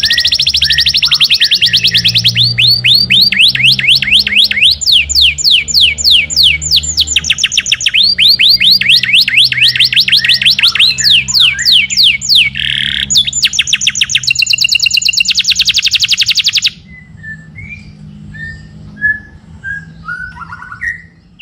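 Domestic canary singing a long, loud song of fast rolling trills and rapid sweeping notes, which cuts off suddenly about three-quarters of the way through. After that, only a few faint short chirps.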